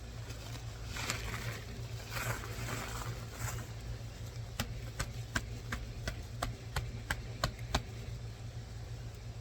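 Dry potting soil being loosened by hand in an overturned grow bag: rustling and scraping for the first few seconds, then a run of sharp clicks and taps. A low steady hum runs underneath.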